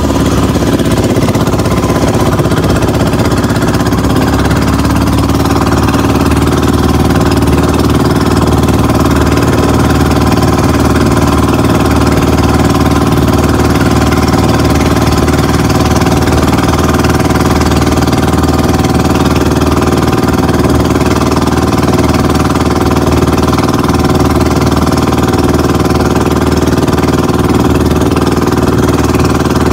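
Engine of a motorized outrigger boat (bangka) running steadily under way at constant speed, loud and unchanging in pitch.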